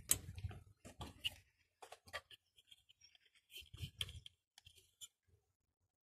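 Faint handling noises of a metal disc car horn being lifted off its bracket and turned in the hand: scattered clicks and short scrapes with a couple of dull knocks, stopping about five seconds in.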